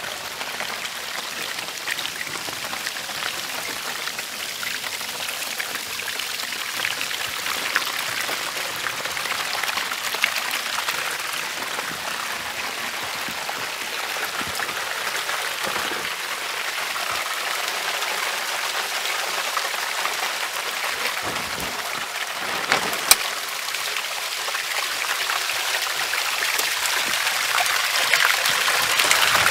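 Steady rain falling, with many close drops pattering and one sharp tap about two-thirds of the way through. It grows a little louder near the end.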